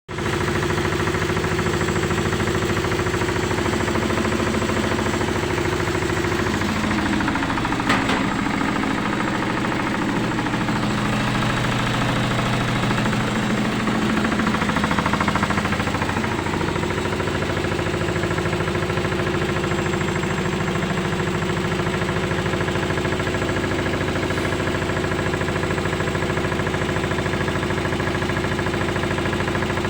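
Candy GCY1042D washing machine running its spin cycle: a steady motor-and-drum hum whose pitch wavers and shifts for several seconds in the middle before settling back to a steady tone, with a single sharp click about eight seconds in.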